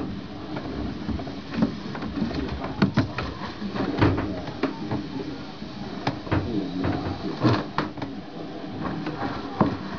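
Scattered clicks, knocks and rubbing from latex balloons being handled, squeezed and cut open at the neck with scissors to let the air out.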